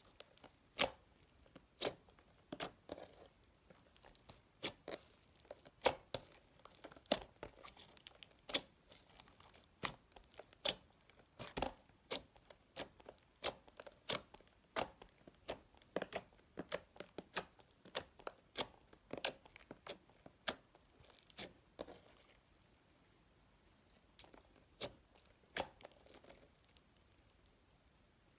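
Store-bought floam slime being squeezed and worked by hand, its foam beads crackling in a dense run of sharp, irregular pops that thins out to a few near the end.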